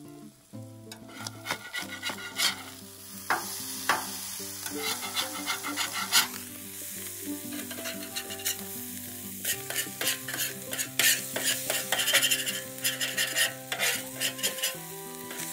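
Hash browns sizzling on a Blackstone steel griddle while a metal spatula scrapes, chops and turns them in quick strokes. The sizzle grows louder and brighter about six seconds in.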